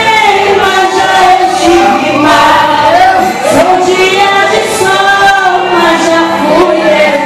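A woman sings a worship song into a handheld microphone, amplified through the hall's sound system, with electronic keyboard accompaniment. The singing is continuous, with held notes and gliding pitches.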